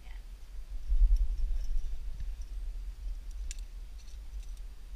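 Climbing rope being handled and tied into, with light clicks, a cluster of them about three and a half seconds in, over a low rumble that is loudest about a second in.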